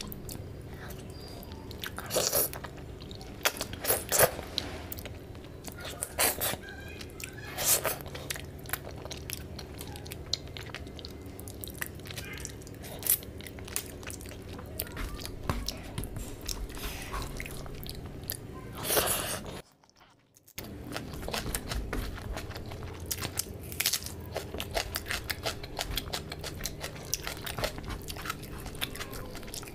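Close-miked eating by hand: chewing and wet mouth smacks over rice and curry, with fingers squishing and mixing rice in the gravy on the tray. The sound drops out briefly about two-thirds of the way through.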